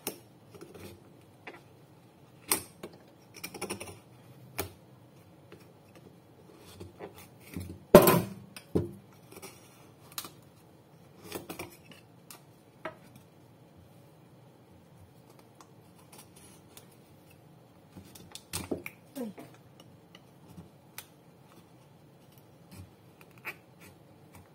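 A knife prying and scraping coconut meat out of a halved coconut shell: scattered clicks and scrapes of the blade against the hard shell, with one loud sharp knock about eight seconds in and a few more knocks later on.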